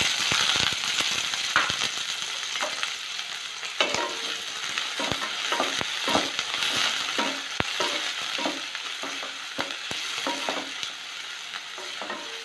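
Chopped shallots sizzling in hot oil in a stainless steel pan. A wooden spatula stirring them knocks and scrapes against the pan many times. The sizzle is loudest just after they go in and eases a little.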